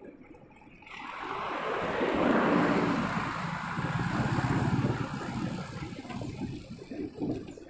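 A truck passing in the opposite lane: its engine and tyre noise swell about a second in, peak for a few seconds with a brief low engine tone, then fade. Wind buffets the microphone throughout.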